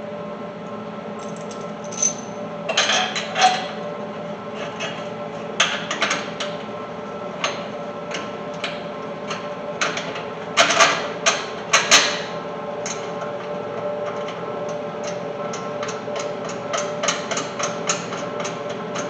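Steady hum of a MIG welder switched on and standing by, with irregular metal clanks and knocks as steel parts are handled and set in place on the truck's frame; a quicker run of light ticks comes near the end.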